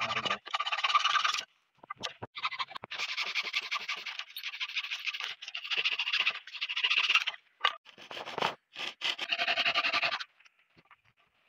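A small red-framed hand saw cuts through a thin dry branch, making a rasping sound from quick back-and-forth strokes. The strokes come in runs of a second or two, broken by short pauses.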